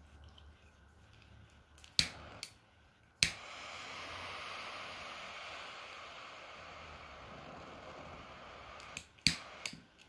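Butane torch lighter: a few sharp clicks as it is sparked, then its jet flame hissing steadily for about six seconds, cut off by another few clicks near the end.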